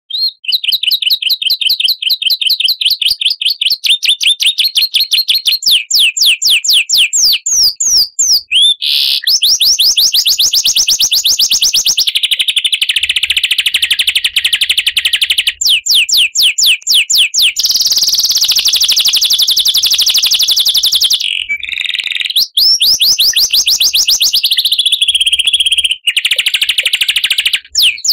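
Recorded songbird song used as a 'masteran' tutor track: loud, high-pitched rapid trills of repeated sweeping notes. The pattern switches to a different trill or call every few seconds.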